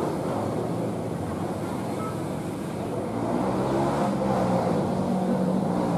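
Trail motorcycle engine running out of sight, getting a little louder and rising slightly in pitch from about three seconds in.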